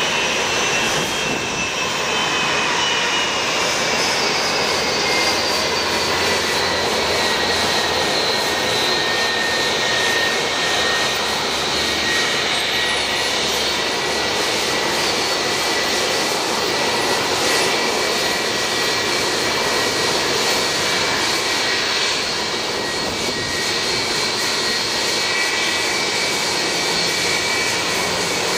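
Boeing 757-300's twin turbofan jet engines whining and rumbling at taxi power. The whine falls slightly in pitch over the first several seconds, then holds steady.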